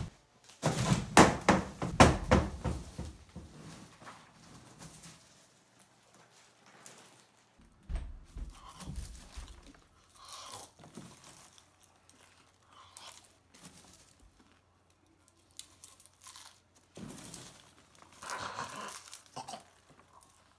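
Popcorn rustling and crackling as a person shifts about in a plastic tub full of it, with thumps against the tub in the first few seconds. Quieter rustling and munching of mouthfuls of popcorn follow, with another thump about eight seconds in and a busier stretch of rustling near the end.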